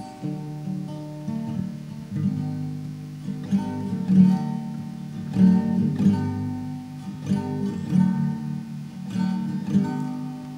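Acoustic guitar playing a slow instrumental interlude between verses of a gospel song, sounding a new chord about every second and a half.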